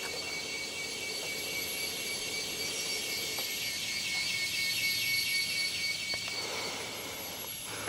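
Rainforest insect chorus: several insects droning steadily at high pitch, with a pulsing trill joining in partway through.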